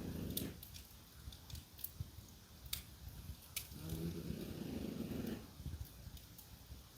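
French bulldog snoring: a rattling snore that ends about half a second in and a second one from about three and a half to five and a half seconds in. Sharp pops of a crackling wood fire come now and then throughout.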